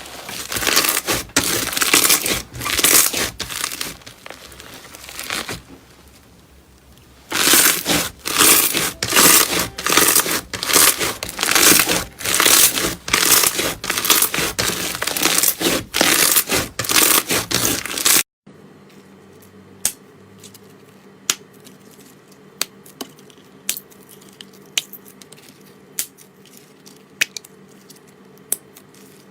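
Slime being squeezed and pressed by hand, making dense crackling and crunching, with a short pause after about five seconds. About 18 seconds in it cuts off abruptly to a quieter stretch of sparse single sharp clicks and pops.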